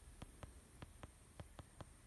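Near silence with faint, evenly spaced ticking, about five ticks a second.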